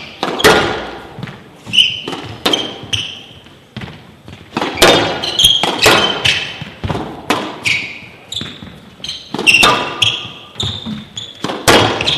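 Squash rally: the ball cracking off the rackets and smacking the front wall and glass walls in quick succession, each hit ringing briefly in the hall, with short high squeaks of court shoes on the floor between hits.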